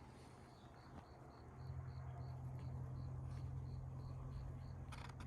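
A cricket chirping steadily, about three short high chirps a second, over a low steady hum that comes in about a second and a half in.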